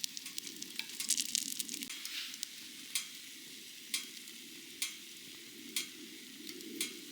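Food sizzling and frying in a pan, with a burst of dense crackling about a second in and sharp ticks roughly once a second in the second half.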